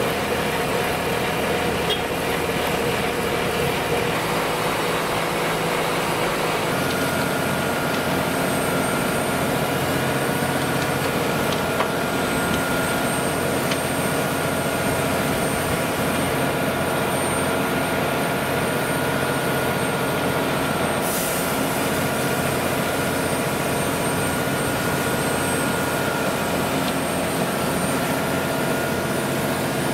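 Heavy diesel machinery running steadily under work, with a high whine that sets in about seven seconds in as the engine note shifts.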